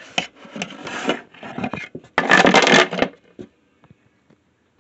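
Handling noise from a hand gripping and moving a tablet recording itself: rubbing and scraping against the device near its microphone, with a few knocks and a louder scrape lasting under a second about two seconds in, then only small ticks.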